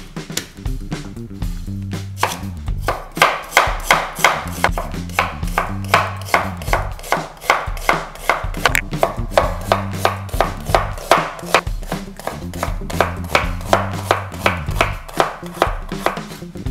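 Knife chopping on a cutting board in a quick, even rhythm of about three cuts a second, over background music with a steady bass line.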